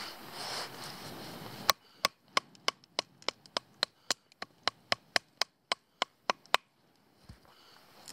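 Large fixed-blade knife chopping into a piece of wood: about eighteen quick, sharp strikes at a steady three or four a second, starting a couple of seconds in and stopping about a second and a half before the end.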